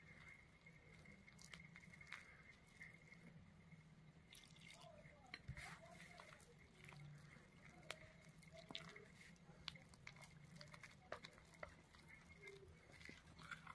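Faint wet squishing and scattered light clicks of thick gram-flour batter being stirred in a bowl.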